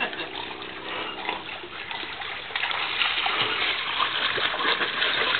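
Lake water splashing as a dog swims and a person paddles beside it, louder from about two and a half seconds in.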